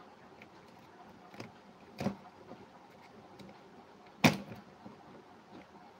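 Handling knocks and clicks as the camera mount is adjusted: three sharp taps, the loudest about four seconds in, over a faint steady hiss.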